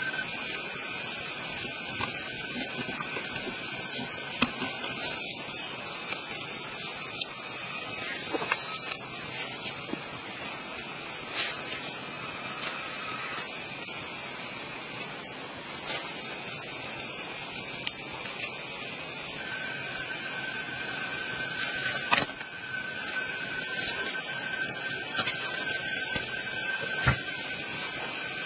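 Steady, high-pitched droning of insects in tropical forest, running unbroken throughout. Occasional sharp clicks and knocks of wooden sticks being handled and fitted together cut across it, the loudest about two-thirds of the way through.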